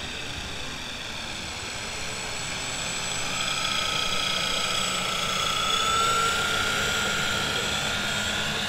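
Electric motors and propellers of a large scale Junkers Ju 52 RC model plane whining as it flies a low pass, growing louder to a peak about six seconds in, with a slight rise in pitch.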